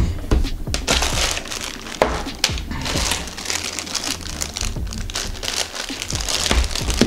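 Plastic crinkling as the film-covered mirror dash cam is handled, over background music with a steady beat.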